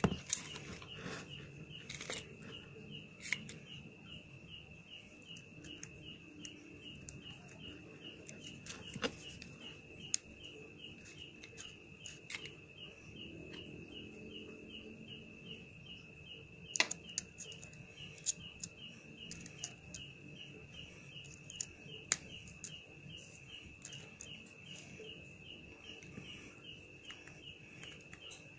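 An insect chirping in a steady, even rhythm, with scattered sharp clicks and knocks from a mini grinder's keyless chuck being handled and twisted by hand.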